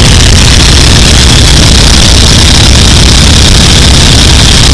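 Boeing Stearman biplane's radial engine running steadily in flight, loud, with wind rushing past the onboard microphone.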